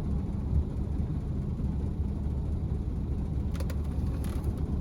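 Steady low rumble with a few faint clicks near the end.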